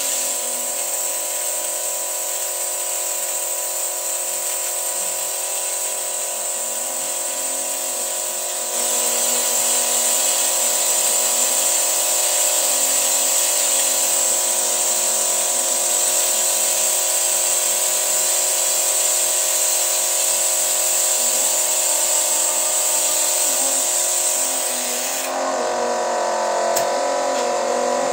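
Petrol engine of an old Toyota running steadily at raised revs while carbon cleaner is fed into it, with a steady high hiss over the engine note. It grows louder about nine seconds in, and the high hiss drops away about 25 seconds in.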